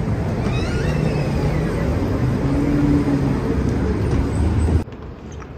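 Steady low rumble of road traffic. It drops suddenly to quieter background noise shortly before the end.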